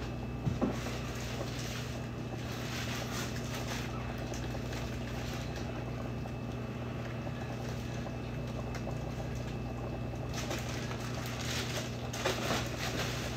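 Faint crackling and sizzling of food cooking in a pan on the stove, over a steady low electrical hum.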